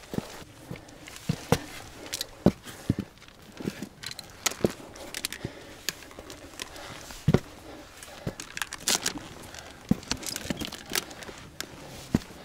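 Irregular knocks, scuffs and crackles of a hiker scrambling over rock: boots striking and scraping stone, with clothing and gear rustling. The loudest knocks come about two and a half and seven seconds in.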